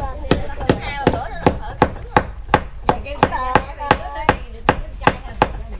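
Food being chopped with a knife on a cutting board in steady, even strokes, about three a second, with faint voices between the strokes.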